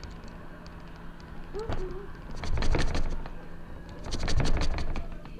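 Two bursts of rattling, knocking and rumbling handling noise, as the camera is shaken hard to fake an earthquake. A short squeak comes about a second and a half in.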